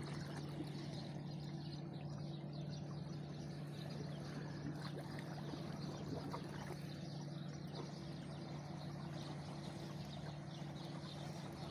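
Motorboat engines out on the river, a steady low drone that holds an even pitch.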